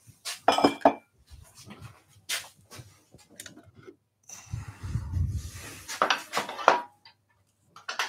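Hard clinks, knocks and clatter of tools and wooden parts being handled and set down at a wood lathe, with a longer rough, rumbling stretch about halfway through.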